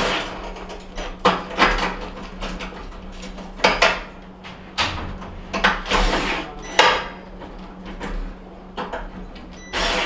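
A cordless drill-driver runs in short bursts, fastening a gas range's burner base to the cooktop, with irregular clicks and knocks of the tool and metal burner parts.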